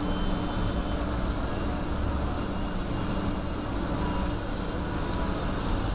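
Traffic on a flooded street in rain: a continuous hiss of rain and water with a low engine rumble from passing vehicles.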